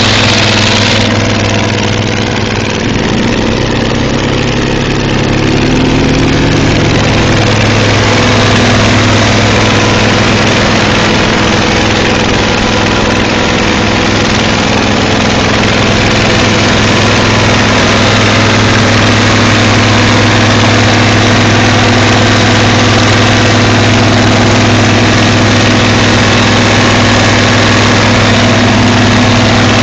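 Versatile 900 tractor's straight-piped diesel engine running loud and steady while it pushes deep snow with a front blade. Its pitch wavers for a few seconds near the start, then holds even.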